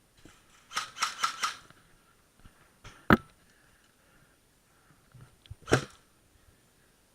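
Airsoft guns firing: a quick string of about four sharp pops about a second in, then single loud pops about three seconds in and near the end.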